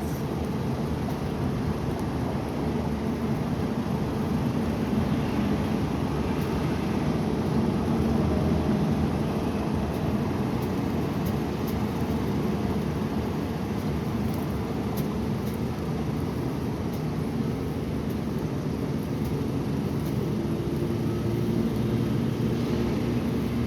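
Steady low rumbling noise, with no clear pitch.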